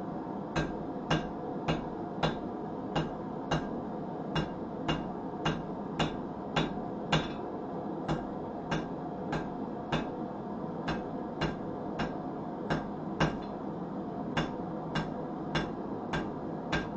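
Hand hammer striking hot nail stock on an anvil at an even pace of about two blows a second, squaring off the nail's shank, over a steady hum.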